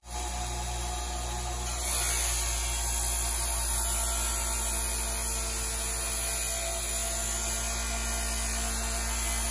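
Electric bench buffer running with a steady hum. About two seconds in, a metal trim piece is pressed against the spinning waxed buffing wheel, adding a louder high hiss of polishing.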